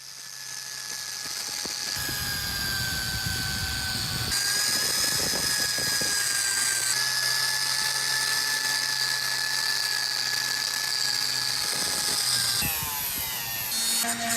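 Small high-speed electric rotary tool running with a steady high whine while taking rust off the old metal, its sound changing abruptly a few times where separate clips are joined.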